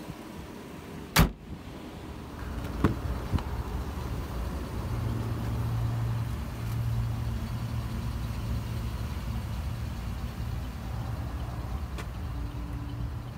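A pickup's hood slammed shut with one loud bang about a second in, followed by a couple of small clicks. A low steady vehicle hum then holds to the end.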